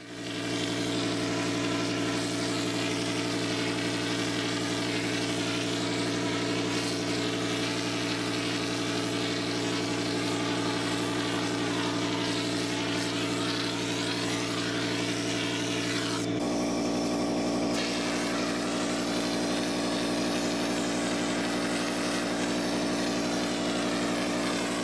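Graco 1500 texture spray rig running steadily: a constant motor hum with the hiss of the air-assisted texture gun spraying coating. The hiss weakens briefly about 16 seconds in, then comes back.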